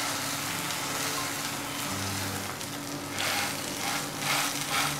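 Semolina-topped bread slice frying in butter in a nonstick pan, a steady sizzle, with a wooden spatula pressing on the slice in the second half.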